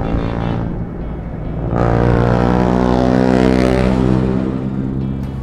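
A motor vehicle's engine passing close by. Its steady hum grows much louder just under two seconds in, holds, then fades near the end.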